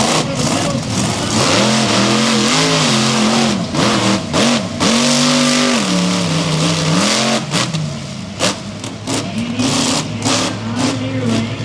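Monster truck engines revving hard under racing load, their pitch rising and falling again and again as the throttle is worked, over a loud steady rush of engine and track noise.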